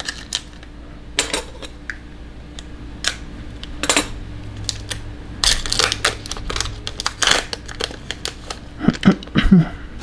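Trading cards and a foil card pack being handled: an irregular run of sharp clicks, snaps and rustles as cards are set down and the next pack is opened, with the loudest handling near the end.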